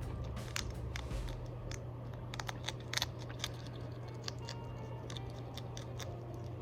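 Hedgehog chewing a snack: irregular small crunches and clicks, a few of them sharper, over a steady low hum.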